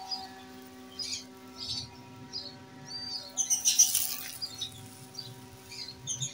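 Small birds chirping in short high calls scattered throughout, with a louder burst of hissy noise a little past halfway through, over a faint steady hum.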